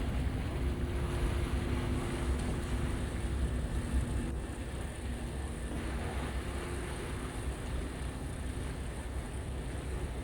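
Wind buffeting the microphone over a steady low rumble of boat machinery and sea, with a faint steady hum that fades out about seven seconds in.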